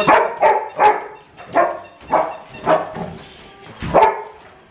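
A run of about eight short barks, roughly two a second, with a slightly longer gap before the last one.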